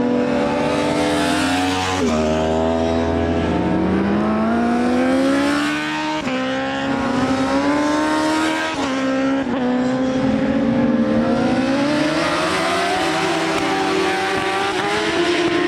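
Racing superbikes at high revs, several together, their engine pitch climbing as they accelerate and dropping abruptly a few times before climbing again.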